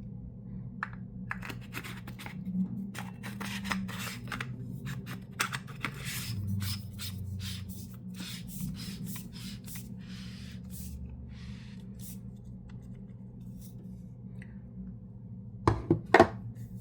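Clicks, taps and light scraping from metal flashlights being handled, busiest in the first half, with two loud knocks in quick succession near the end.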